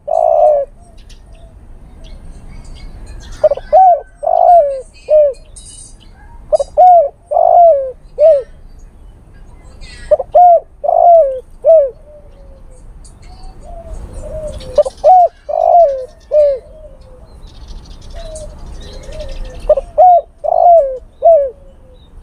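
Male spotted dove cooing its advertising call to draw a female: phrases of three or four loud, arched coos, repeated about every four seconds.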